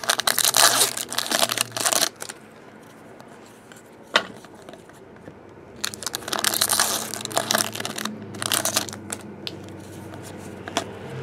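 A trading card pack torn open and its wrapper crinkled by hand: two spells of tearing and rustling, the second starting about six seconds in, with a single sharp click between them.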